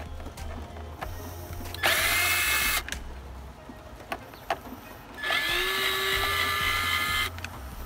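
Cordless drill run in two bursts, about a second and then about two seconds, its motor whining up in pitch as it spins up and then holding steady. A few light clicks of handling come between the bursts.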